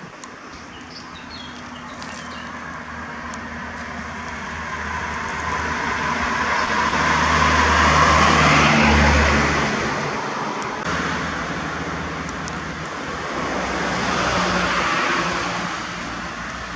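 Road traffic: a car drives past close by, growing to its loudest about halfway through and then fading, and a second vehicle passes a few seconds later.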